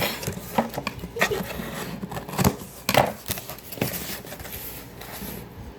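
Package being opened by hand: irregular rustling, scraping and clicks of cardboard and packaging material.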